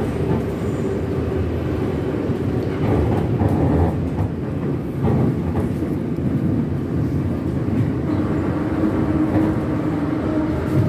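Retro Moscow metro train running through the tunnel, heard from inside the passenger car: a steady loud rumble of wheels and running gear. A motor hum fades early on and comes back slightly lower in pitch over the last few seconds.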